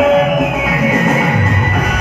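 Live Hindu devotional bhajan music played over loudspeakers, with held melodic notes over a steady low accompaniment.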